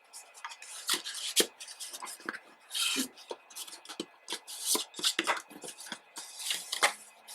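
Hands handling album packaging and its CD: a rapid, irregular run of clicks, taps and short scrapes as something is worked loose from the package.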